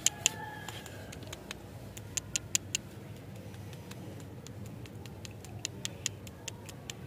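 Light, sharp clicks and taps from wrapped stick lollipops being handled and set down, coming in short runs of quick ticks: a few right at the start, four in quick succession about two seconds in, and another cluster near the end.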